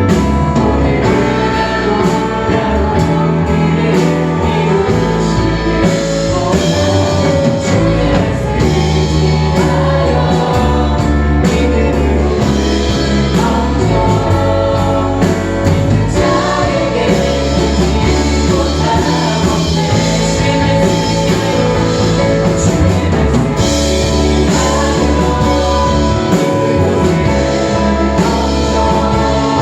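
Church praise band performing a worship song live: singers over a full band with a strong bass line and a steady drum beat.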